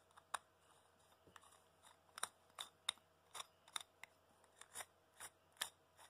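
A metal conduit locknut being turned by hand onto the threads of a 3D-printed plastic fitting, giving small crisp clicks: a few at first, then about two to three a second from about two seconds in.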